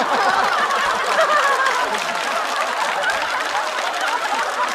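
Large studio audience laughing hard after a stand-up punchline, with clapping joining in as the laughter goes on.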